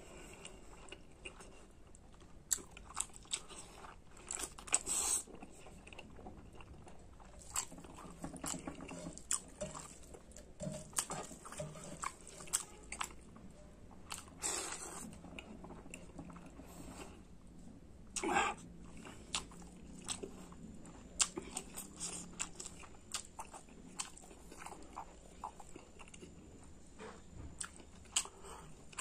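Close-up chewing and mouth sounds of a person eating pork curry with rice, with irregular wet smacks and clicks.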